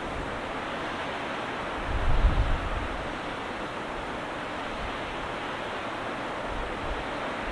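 Steady rushing wind noise on the microphone, with a stronger low buffet about two seconds in.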